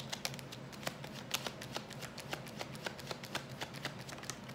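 A tarot deck being shuffled by hand: a quick, irregular run of light card clicks and flicks, several a second.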